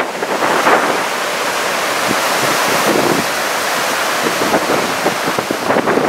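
Rough typhoon surf breaking and rushing up the shore in a continuous dense roar, mixed with strong wind buffeting the microphone.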